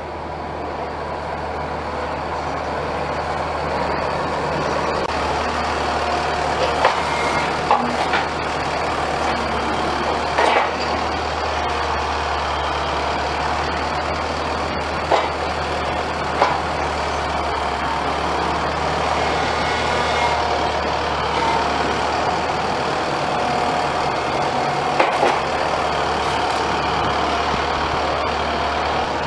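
Engine of heavy farm machinery running steadily, growing louder over the first few seconds, with a handful of short clanks and knocks.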